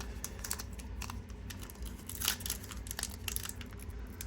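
Foil Pokémon booster-pack wrapper crinkling as it is handled: a run of small, sharp crackles, thickest a couple of seconds in and again around three seconds.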